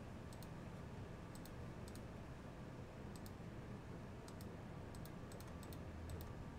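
Faint, scattered clicks on a computer as the team list is sorted, some single and some in quick pairs, over a steady low room hum.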